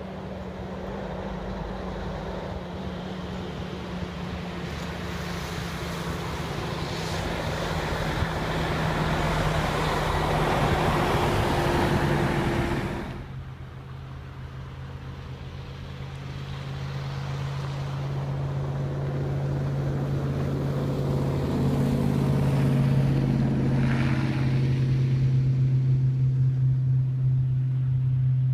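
Motor vehicle engine hum with road noise, building up over the first twelve seconds and then cutting off abruptly, followed by a lower, steady engine hum that grows louder.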